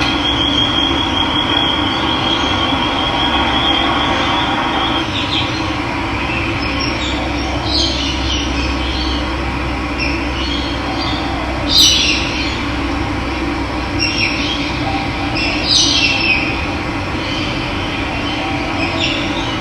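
Steady rush of running water with wild birds calling over it: a high trilled note for the first few seconds, then short bright chirps several times, the loudest about two-thirds of the way through.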